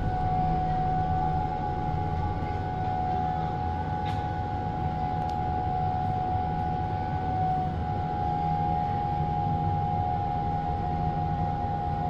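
Alstom Metropolis C751C metro train standing at the platform, giving a steady high whine over a low drone, the whine stepping slightly lower in pitch about two-thirds of the way through.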